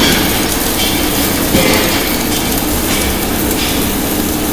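Steady mechanical rumble and clatter of a submerged arc welding rig at work, the LPG cylinder body turning on its rotator while the seam is welded under the flux.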